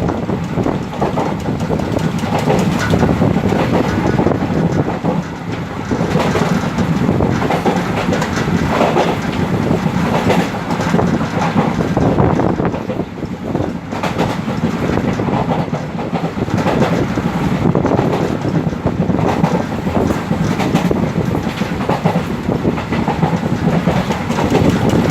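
Indian Railways express passenger coaches running at speed: a steady rumble of wheels on rails with the clickety-clack of the wheels crossing rail joints.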